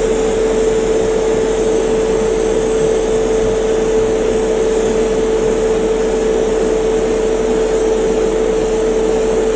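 An airbrush compressor runs with a steady hum while the airbrush sprays primer at full pressure, giving a continuous hiss of air.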